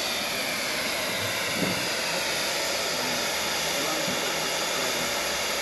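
Steam hissing steadily from a standing steam locomotive, the Horwich-built 1896 0-6-0 No. 52322, in an even, unbroken rush.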